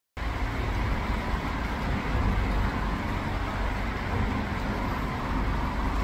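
Steady outdoor background noise with a strong low rumble, starting abruptly just after the beginning, with no distinct calls or splashes standing out.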